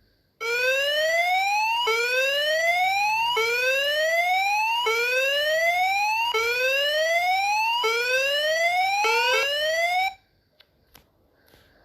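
Emergency alert alarm tone: a whooping siren-like sweep that rises in pitch, snaps back down and rises again about every second and a half, seven times, with a brief stutter near the end before it cuts off abruptly.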